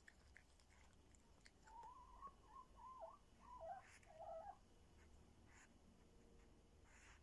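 A cat gnawing at a meat bone, with a few faint crunching clicks. Near the middle comes a faint, whistle-like call that wavers up and down in pitch for about three seconds.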